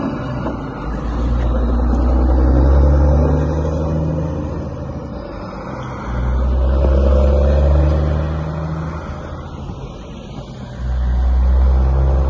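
Diesel semi-truck engine pulling a loaded cattle trailer away under power: a loud, low exhaust note that comes in three pulls with quieter lulls between them, about every four to five seconds.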